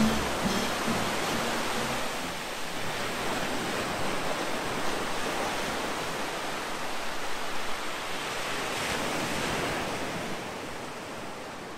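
Ocean surf washing in a steady rush, with the last notes of a song dying out in the first two seconds.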